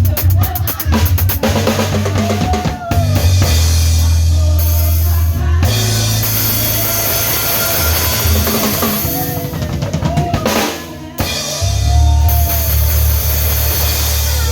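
Drum kit with kick drum, snare and rimshots, played along to a recorded song medley with bass and melody.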